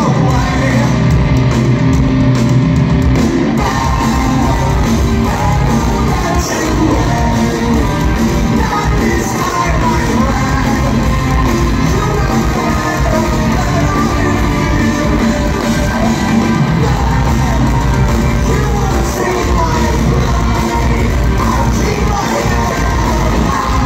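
A rock band playing loudly live, with electric guitars, bass and drums under a singer's voice, and the crowd shouting along.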